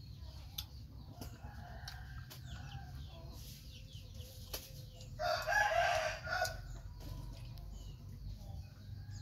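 A rooster crows once, lasting just over a second, about five seconds in, with other chickens clucking faintly around it.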